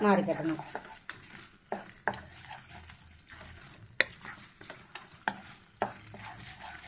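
Wooden spatula stirring chicken and spiced onion masala in a frying pan, knocking and scraping against the pan at irregular intervals about once a second, with a faint sizzle of the masala frying in oil.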